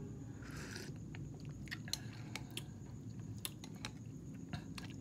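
Close-up eating sounds of a man eating instant ramen: a short slurp of broth from a spoon about half a second in, then wet chewing and mouth smacks with scattered sharp clicks.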